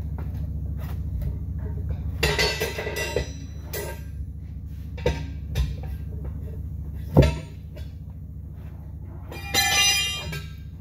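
Steel tire irons clanking and ringing against a truck wheel rim as the tire is levered over the bead by hand, with a sharp knock about seven seconds in and a ringing clatter near the end. A steady low hum runs underneath.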